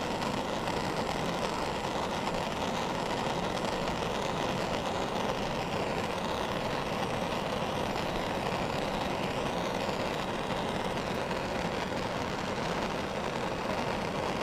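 Propane torch burning with a steady hiss, its flame held on a soldered copper sweat joint to melt the solder so the joint can be pulled apart.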